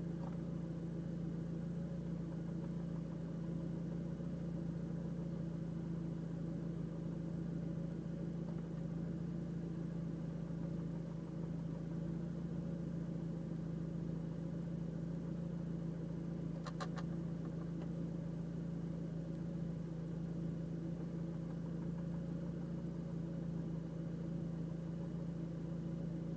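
Seat Leon Cupra's engine idling steadily, heard from inside the cabin. About two-thirds of the way through there is a quick run of several sharp ticks. This is the intermittent idle tick the owner is trying to track down, and its cause is unknown.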